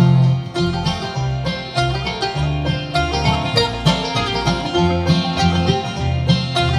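Acoustic bluegrass band playing an instrumental passage between sung lines: banjo, mandolin, acoustic guitar and upright bass.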